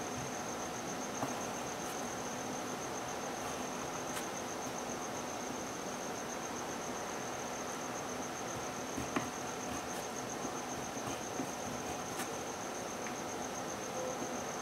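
Cricket trilling steadily, one continuous high-pitched, rapidly pulsing chirr, over a faint hiss. A few small clicks, the sharpest about a second in and about nine seconds in.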